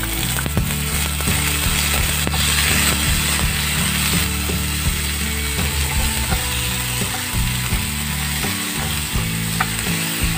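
Tomato wedges sizzling as they land in hot oil with shallots and garlic in a nonstick frying pan, while a wooden spatula stirs, scraping and tapping the pan in quick repeated clicks.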